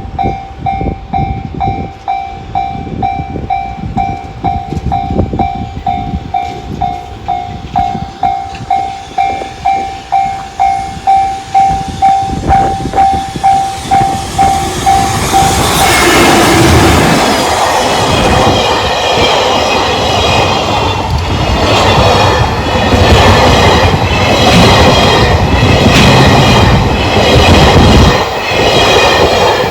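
Japanese railway level-crossing warning bell (JR standard electronic tone) ringing at about two strokes a second, then, about halfway through, a freight train hauled by an EF210 electric locomotive passes close by, its wheels clacking rhythmically over the rail joints and drowning out the bell.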